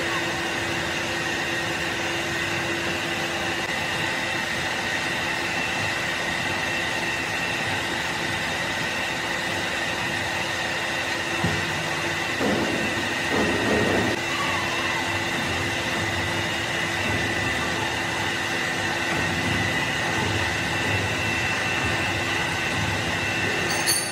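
Steady electric hum of heavy workshop machinery running, holding several constant tones, with a brief voice-like call about twelve to fourteen seconds in.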